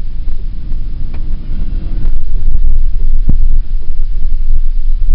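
Heavy, fluttering low rumble of a moving Toyota Land Cruiser on a rough desert track, mixed with wind buffeting the microphone, with a single sharp knock about three seconds in.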